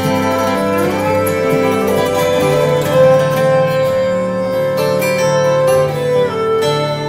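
Slow instrumental soundtrack music with long held melody notes over a lower accompaniment, and a note sliding upward about a second in.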